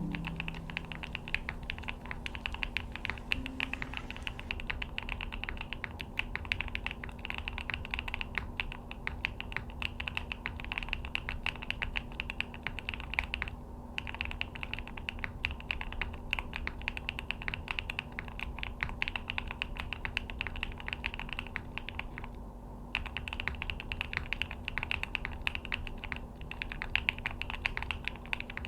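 Fast continuous typing on a Neo65 custom mechanical keyboard, a dense stream of key clacks. The typing stops briefly twice, about halfway through and again about four-fifths of the way through.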